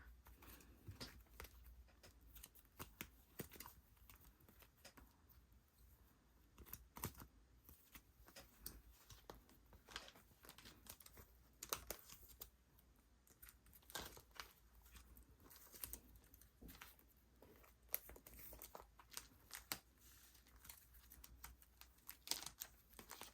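Faint, scattered rustling and small clicks of paper cards and plastic sleeves being handled as benefit cards are slid into binder pockets.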